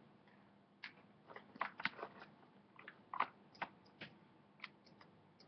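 Irregular light clicks and scrapes of a USB plug and its cable being handled and pushed at a port on the back of a computer.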